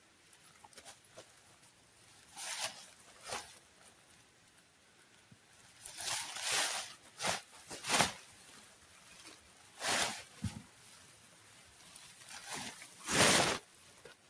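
A run of short rustling and scraping noises at irregular intervals, about nine in all, as someone handles camping gear. The loudest comes near the end.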